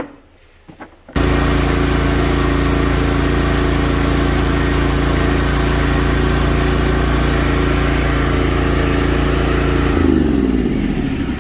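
Kawasaki FS691V V-twin engine of a zero-turn mower running steadily after a fresh oil change; it comes in abruptly about a second in. Near the end it is shut off and its pitch falls as it winds down.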